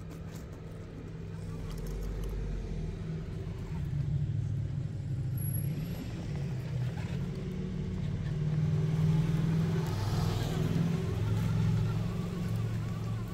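Absima Sherpa RC crawler's Fusion Pro brushless motor and drivetrain whining at crawling speed, the pitch stepping up and down with the throttle. The tyres crunch over gravel now and then, and the sound grows louder over the first few seconds.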